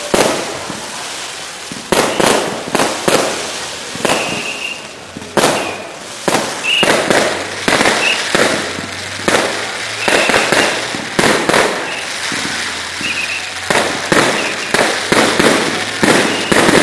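Aerial fireworks display: shells bursting with sharp bangs in quick, irregular succession, roughly one to two a second, with a noisy haze between the bangs.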